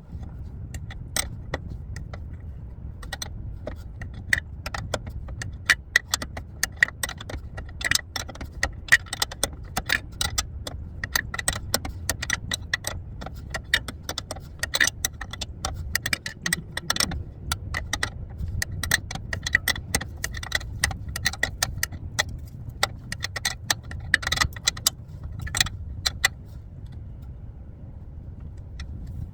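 A ratchet wrench clicking in quick runs of short metallic clicks as a fastener on the car's front suspension is run on, over a steady low background rumble.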